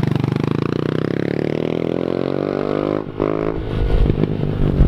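110cc mini dirt bike engine revving up, its pitch climbing steadily for about three seconds as the bike accelerates. Then it drops away and a low, uneven rumble with thumps takes over.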